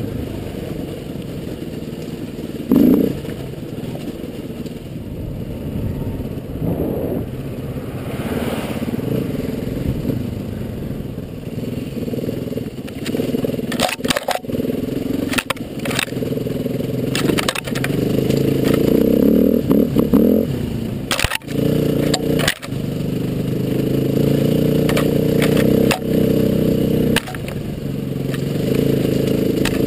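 Trail motorcycle engine running at low, varying revs, getting louder in the second half. From about halfway through, branches and brambles repeatedly crack and scrape against the bike.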